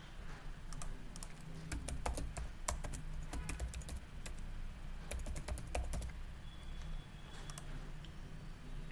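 Typing on a computer keyboard: a run of quick key clicks for about six seconds, thinning out to a few clicks near the end, over a low steady hum.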